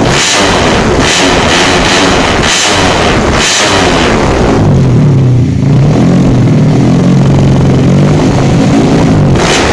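Yamaha Vega 115's single-cylinder four-stroke engine through an RCB competition exhaust, revving loudly. It is blipped in short surges about once a second, then held high and steady for about five seconds before dropping off near the end.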